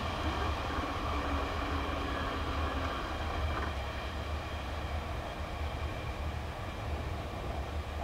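Train of KiHa 120 series railcars towed by an EF65 electric locomotive running away along the line, a steady low rumble of wheels on rail that slowly fades.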